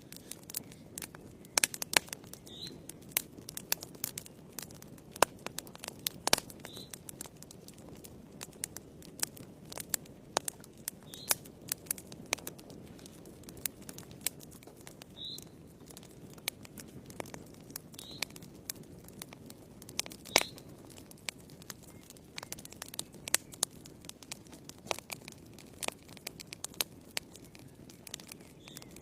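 Wood fire crackling in a fireplace: irregular sharp pops, some much louder than others, over a steady low rush of burning.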